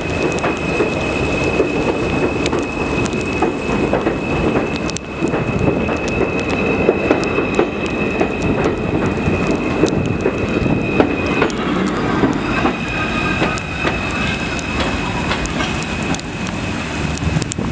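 R160A-1 subway train departing along elevated track: a steady rumble with many short clicks, and a high steady tone over it that breaks off for about a second near the middle before coming back.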